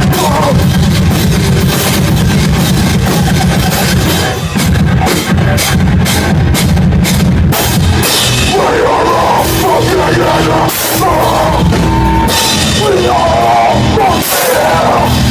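A hardcore band playing live at full volume: heavily distorted guitars over fast, dense drumming. About halfway through, a higher, wavering part comes in over the band.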